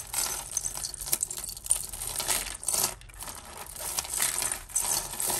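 Chunky plastic beads and tangled costume jewellery clicking and rattling against each other as they are handled and pulled apart, a busy run of many small clicks.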